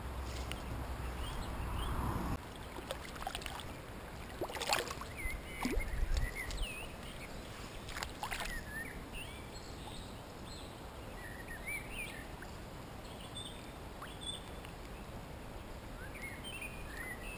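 River water splashing in short bursts as a hooked chub is landed and handled in the shallows, with small birds chirping faintly.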